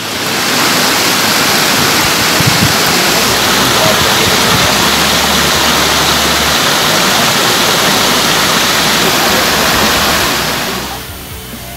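Loud, steady rush of water falling and tumbling over rocks at a mountain waterfall and stream, fading out about a second before the end.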